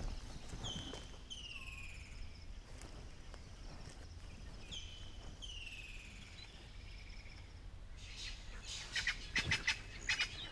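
A bird whistles short falling notes, twice over. Then, about eight seconds in, a spurfowl breaks into loud, rapid, harsh cackling: its alarm call, the sign of a predator nearby, which the guide takes for a leopard, lion or bird of prey.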